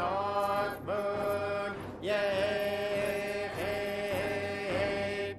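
Voices chanting a string of long held notes, each starting with a small upward slide in pitch and held for about a second, one longer note after about two seconds.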